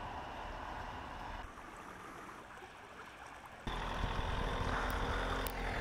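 Steady rush of a flooded river. About three and a half seconds in it cuts, louder, to a van's engine running as it drives along a road under floodwater, with water washing around it.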